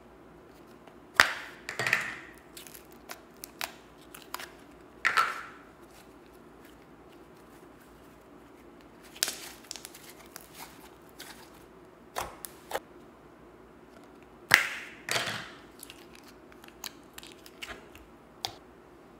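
Slime being pressed and squished by hand, giving irregular sticky squelches and small clicking pops. Three louder squishes come about a second in, around five seconds in, and near fifteen seconds.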